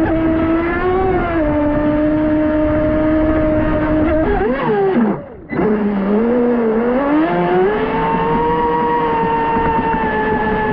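Pro Boat Sonicwake 36 RC boat's 6S brushless motor whining as it runs across the water, its pitch rising and falling with throttle. The sound cuts out briefly about halfway, returns at a lower pitch and then climbs again.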